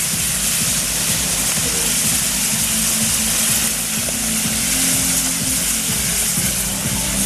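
Mechanized ground firework wheels burning, their many fountains giving a loud, steady hiss as they spin. Music with sustained low notes plays underneath.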